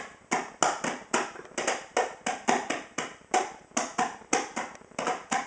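A child beating a hand drum held between the legs with his hands, a quick, slightly uneven run of about four strikes a second.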